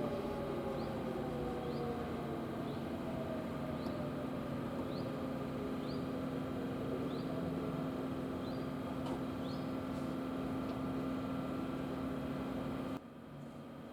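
Pintsch Bamag high-performance siren winding down between signals: its tone falls slowly and faintly in pitch over the first few seconds, over a steady low hum. A short faint chirp repeats about once a second, and the sound drops off suddenly near the end.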